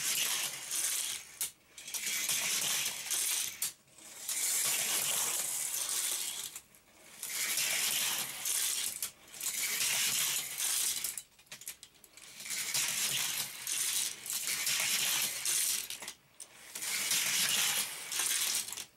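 Die-cast Hot Wheels cars rolling one after another along plastic track and around a loop, their metal bodies and plastic wheels clattering on the track. There are several runs, each a couple of seconds long, with short gaps between.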